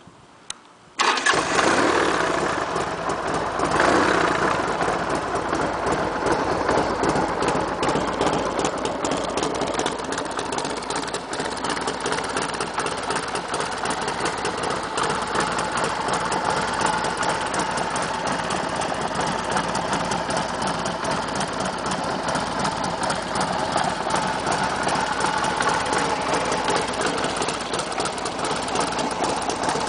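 Harley-Davidson Sportster 1200's air-cooled V-twin, cranked on a lightweight Shorai battery, catching at once about a second in. It rises briefly about four seconds in, then idles steadily through a SuperTrapp two-into-one exhaust.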